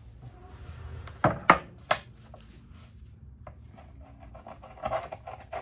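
Three sharp knocks on a wooden board as a leather belt is handled. Near the end, a series of short rasping scrapes as a Benchmade Claymore's D2 blade slices through the genuine leather.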